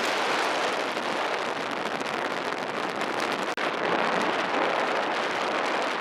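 Steady rushing wind and road noise from a car on the move, with no engine note standing out.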